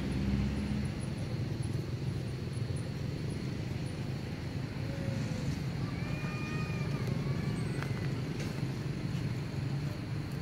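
A steady low rumble of outdoor background noise. About six seconds in, a brief high, level call lasts about a second and a half.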